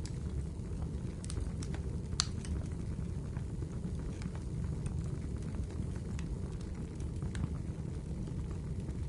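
Fireplace fire crackling: a steady low rumble of flames with scattered sharp pops, the loudest about two seconds in.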